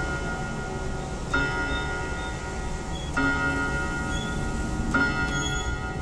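Linden four-gong-rod mantel clock striking the hour on a gong rod: three slow, evenly spaced strikes about two seconds apart, each the same note and ringing on until the next.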